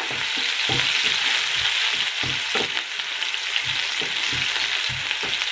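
Sliced onions sizzling in a kadai with a tempering of mustard seeds and dals, stirred with a wooden spatula. The spatula scrapes and knocks on the pan at irregular intervals over a steady frying hiss.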